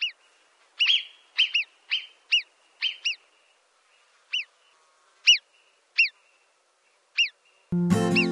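A bird calling: a dozen or so short, high notes, each falling in pitch, at uneven intervals and some in quick pairs. Strummed acoustic guitar music comes in near the end.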